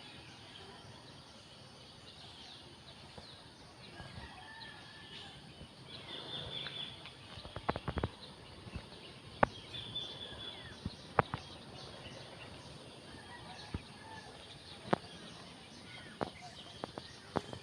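Faint bird calls over a light background noise, with several sharp clicks scattered through.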